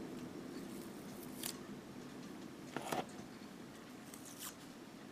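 Small painted plastic model-kit parts being picked up and handled: a few light clicks and rustles, the clearest pair near the middle.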